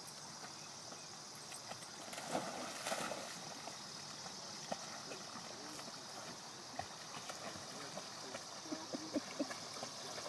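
Faint small splashes, drips and gurgles of water as a dog paddles, scattered irregular ticks over a steady high hiss, with a few louder ones near the end.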